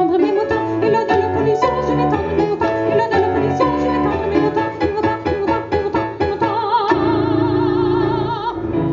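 Live chanson for voice and piano: the piano plays the closing phrase, then a woman's voice holds a long final note with strong vibrato for the last two seconds or so.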